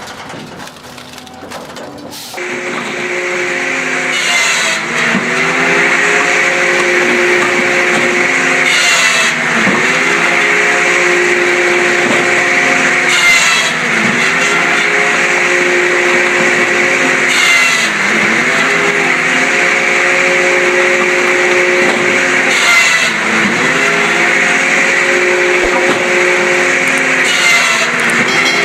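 A press machine comes in loudly about two seconds in and runs in a repeating cycle. Its drone dips in pitch about every four and a half seconds, with a brief crackle at each stroke.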